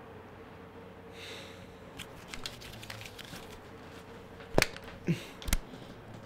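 Faint scattered clicks and taps, then three sharp knocks about half a second apart, the middle one with a short falling tone, over a faint steady room hum.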